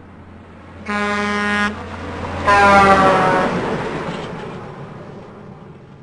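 The classic truck air horn sound effect: a passing truck blows two horn blasts, the first steady and the second dropping in pitch as it goes by. Under the horn, a low engine rumble swells and then fades away.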